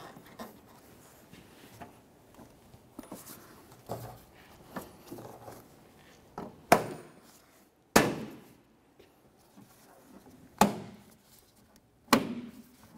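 Plastic windshield wiper cowl grille being pressed down by hand to lock its push tabs into their holes: light clicks and rustles at first, then four sharp thunks about a second or two apart in the second half as sections snap into place.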